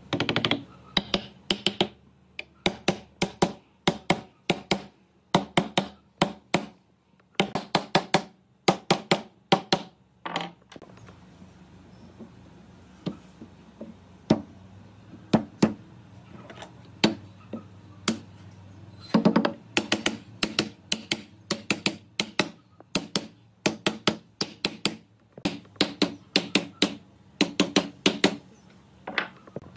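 Repeated sharp knocks of a hand tool striking wood, in runs of several blows at about two to three a second, with a longer pause about halfway through.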